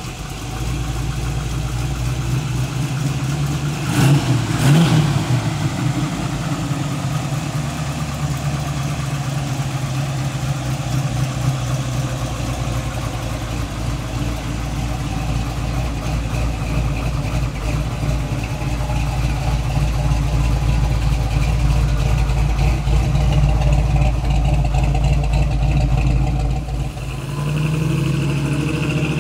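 1957 Chevrolet Bel Air's engine idling with a steady low rumble. It is revved briefly about four seconds in.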